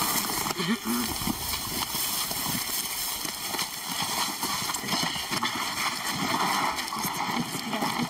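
Scuffling footsteps, knocks and rustling in dry grass as several people lift and carry a sedated lion, with indistinct low voices.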